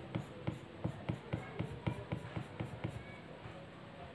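Stylus tip tapping and flicking across an iPad Pro's glass screen in quick short strokes, about four light ticks a second.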